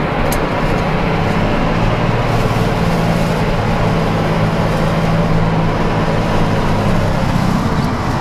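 Snowplough truck's diesel engine running steadily under load, heard from inside the cab while the front plough pushes through snow; the engine note shifts slightly about seven seconds in.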